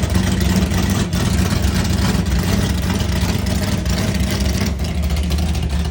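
Loud drag car engine running steadily at a low, even speed, with a deep, unchanging note.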